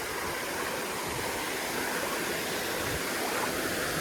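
Water rushing steadily over a spillway, a constant even roar of falling water.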